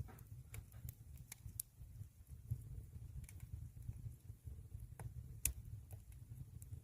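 Wood fire burning in a traditional Korean agungi firebox: irregular sharp crackles and pops over a low, steady rumble, with the loudest pop about five and a half seconds in.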